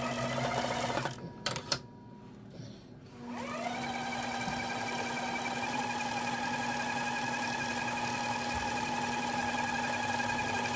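Small electric motor of a line-spooling machine winding braided line onto a conventional fishing reel. It runs steadily, stops about a second in with a couple of sharp clicks, then spins back up with a rising whine about three seconds in and runs on at a steady pitch.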